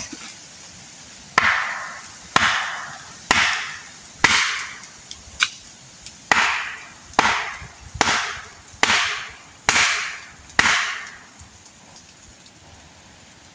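About ten hard blows on wood, roughly one a second, each ringing out briefly: a wedge being hammered into the felling cut of a mango tree.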